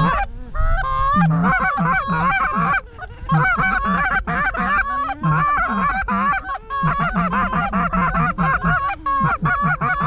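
Canada geese honking and clucking in many rapid, overlapping two-note calls, with a brief lull about three seconds in.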